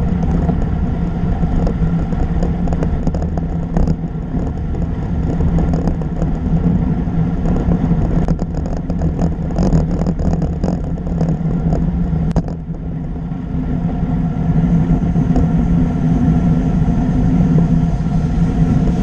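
Steady wind and tyre-on-road noise from a camera mounted on a moving bicycle, with a low hum underneath. A stretch of rattling clatter comes between about eight and twelve seconds in.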